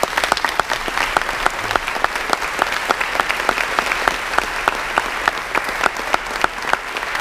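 Audience applauding steadily, with single sharp claps standing out against the dense clapping.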